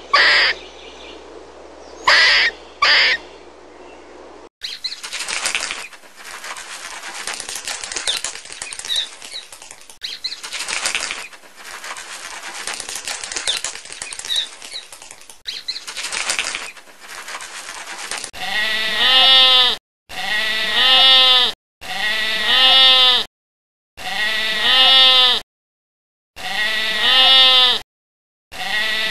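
Two short, high squirrel calls in the first few seconds, then a stretch of crackly noise. From about two-thirds of the way in, a sheep bleats again and again: about six bleats, each about a second and a half long, with short silences between them.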